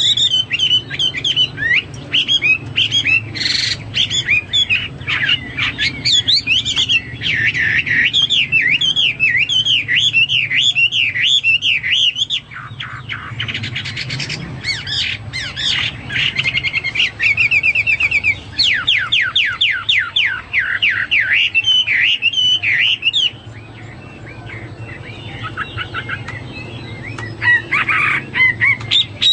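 Hwamei (melodious laughingthrush) singing a long, varied song of loud whistled phrases, with a run of fast repeated trill notes about two-thirds of the way through and a quieter stretch shortly before the end.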